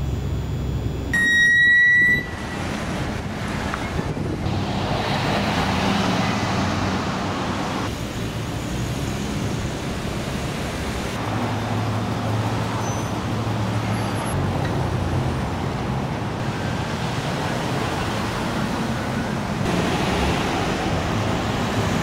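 City street traffic: cars passing with engine and tyre noise, and a flatbed truck's engine humming low as it goes by partway through. A loud, high-pitched beep about a second long sounds near the start.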